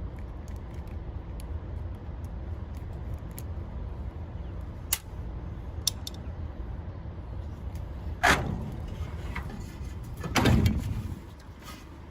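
Hand tools and metal parts clinking and clanking against a condenser unit's sheet-metal housing: a few light clicks, a loud metallic clank about eight seconds in, and a longer clatter near the end, over a steady low rumble.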